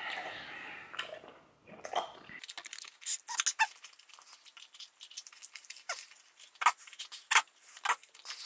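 Wet chewing of a huge wad of about a hundred pieces of chewing gum: irregular squelching, smacking clicks several a second, starting about two seconds in after a short breathy sound.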